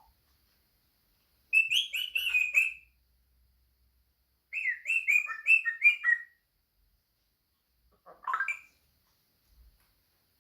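African grey parrot giving two runs of quick, chirping whistled notes, each lasting about a second and a half, then a single short call near the end.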